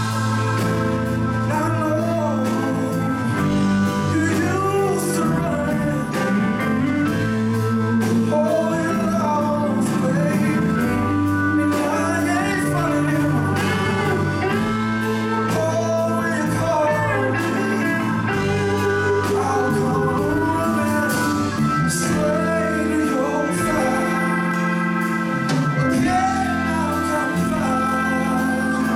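A live blues-rock band: a male singer sings over Hammond organ, electric guitar and drums.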